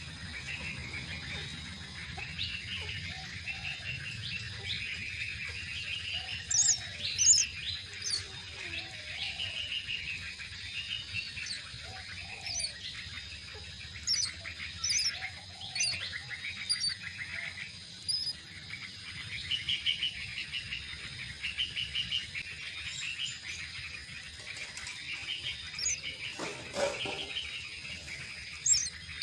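Myna chicks calling at the nest in a continuous chirping chorus, with sharper, higher chirps breaking out now and then and one brief knock near the end.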